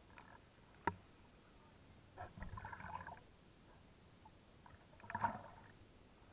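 Faint splashing and sloshing of river water as swimmers move through it, with a sharp knock about a second in and two short bursts of splashing, the second near the end.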